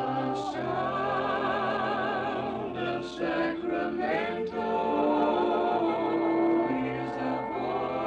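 A studio vocal group sings a radio station jingle in close harmony, holding chords with vibrato. A little past three seconds in, the voices slide up and down in pitch before settling on the next chord.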